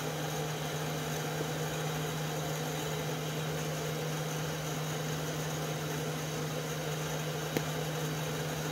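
Steady low machine hum with a constant hiss, unchanging throughout, and one small click near the end.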